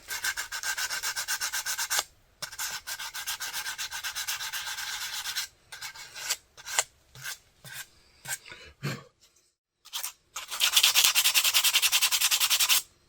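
Hand sanding: sandpaper rubbed quickly back and forth over the repaired tip of a powder horn to smooth it. The strokes come in three long runs, with a few short, separate strokes in between.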